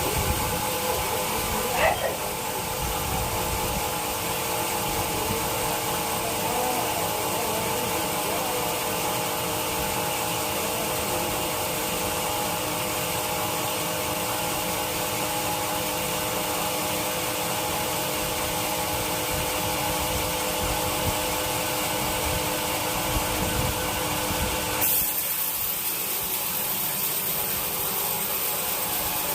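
Sawmill saw running steadily while sawing teak wood: a continuous droning whine with a rumble underneath. About 25 seconds in the sound changes abruptly: the low rumble drops away and a high hiss comes in.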